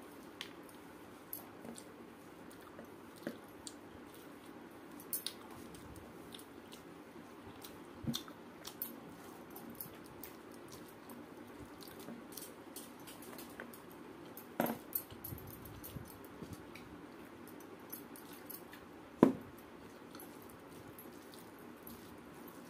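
Close-up eating sounds: rice being squished and mixed by hand on a steel plate and chewed, over a steady low hum. Scattered sharp clicks come through, the loudest about three-quarters of the way through.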